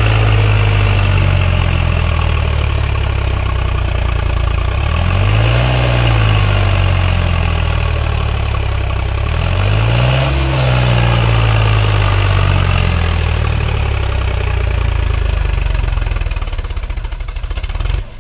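Sonalika tractor's diesel engine labouring under load as it pulls a loaded trolley up through soft sand. The engine speed rises and falls twice, and the sound drops off suddenly near the end.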